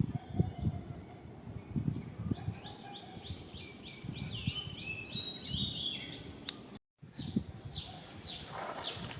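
Birds calling: a run of quick stepped chirps in the middle, then a string of short falling chirps after a brief gap near the end, over irregular low rustling and bumps.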